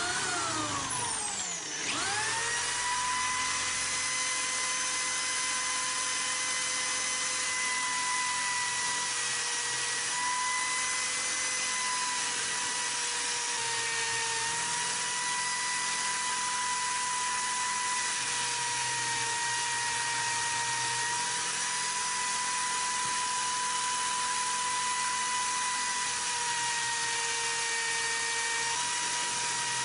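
Power tool spinning a wire brush against a rusty steel pipe wrench to scrub off the rust residue. It runs as a steady motor whine that settles after about two seconds, with the pitch dipping slightly now and then.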